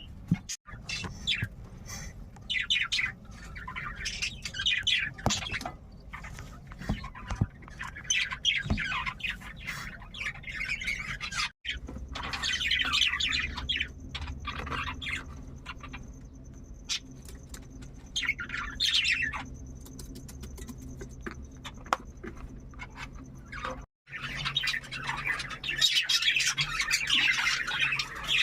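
Cockatiel chirping and squawking in repeated busy bouts, breaking off abruptly a few times.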